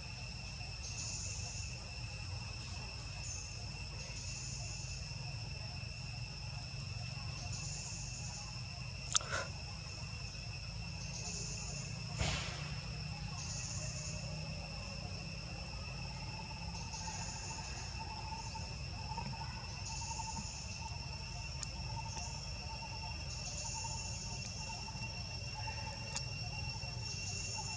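Insects droning steadily on several high pitches at once, with a higher chirping phrase repeating every two seconds or so, over a low rumble. Two sharp clicks stand out, about nine and twelve seconds in.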